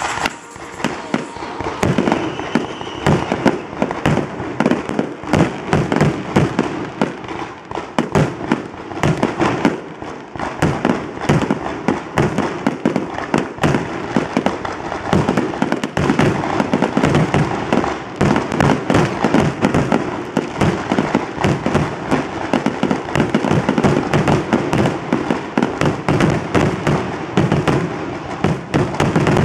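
Aerial fireworks shells bursting in a rapid, continuous barrage, many bangs and crackles every second with no let-up.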